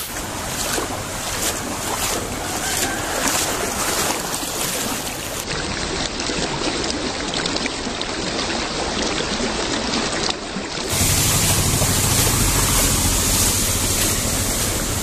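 Floodwater washing and splashing across a road, with wind buffeting the microphone. About eleven seconds in the sound changes abruptly and a low rumble grows louder.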